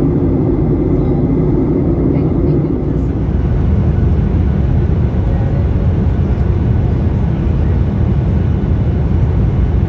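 Steady airliner cabin noise in flight: the engines and rushing air heard from a window seat. About three seconds in the sound changes abruptly and becomes deeper.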